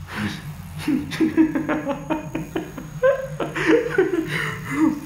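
A man chuckling and laughing to himself in short broken bursts, over a low steady hum.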